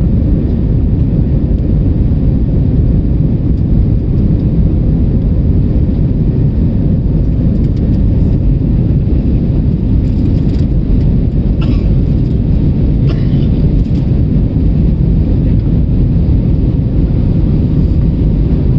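Steady low rumble of a jet airliner's engines and rushing air heard inside the passenger cabin while the plane climbs after takeoff.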